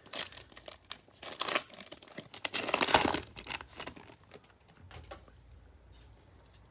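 A trading-card pack wrapper crinkling and tearing as it is opened. The crackling runs for about four seconds, loudest around three seconds in, and then dies away to a faint low hum.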